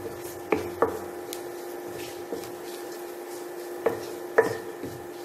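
A utensil stirring and scraping onions and spice powders around a nonstick pan, with several sharp knocks against the pan, over a steady hum from the induction cooktop.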